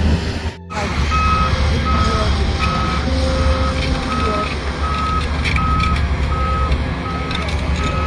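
Reversing alarm on heavy earthmoving equipment beeping steadily, one tone about every 0.7 seconds, over the low rumble of diesel engines. The sound drops out briefly about half a second in, and the beeping starts just after.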